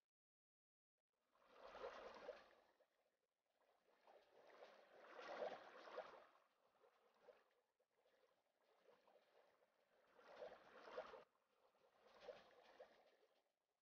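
Faint watery swishing and trickling that comes in about five swells of a second or two each, starting about a second in.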